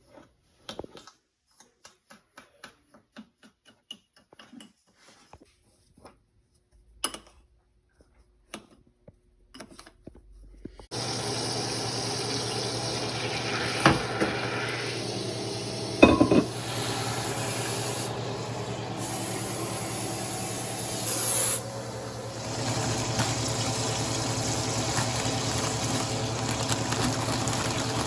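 A spoon stirring and scraping in a bowl of sugar mixture, a string of soft, irregular clicks. About eleven seconds in, butter melting in a saucepan on an electric stove takes over as a steady sizzling hiss over a low hum, with two sharp knocks a couple of seconds apart.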